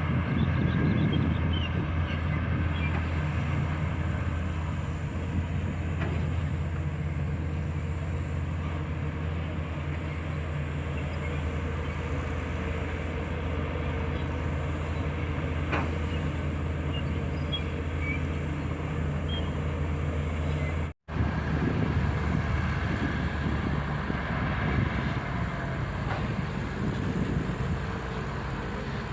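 Bulldozer's diesel engine running steadily under load as it pushes and spreads soil. The sound cuts out for an instant about three quarters of the way through.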